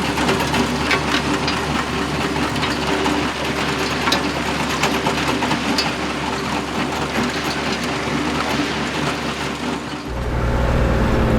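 Construction machines running steadily with rattling and clicking, as an excavator pushes a stalled dump truck. About ten seconds in, the sound cuts to a louder, deeper steady hum.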